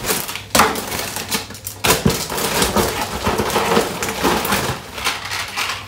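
Plastic snack wrappers crinkling and rustling as packets are handled, with a few sharper knocks about half a second and two seconds in, over a low steady hum.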